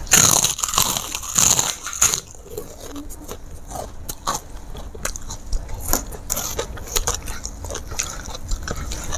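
Close mouth sounds of a person biting into a crisp kerupuk cracker and chewing it: a run of loud crunches in the first two seconds, then smaller crunches and chewing.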